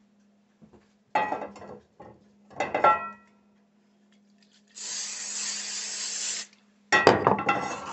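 A metal frying pan clatters and rings twice against the stove. Then an aerosol cooking-spray can hisses steadily into the pan for under two seconds, and the pan clatters back down onto the burner grate.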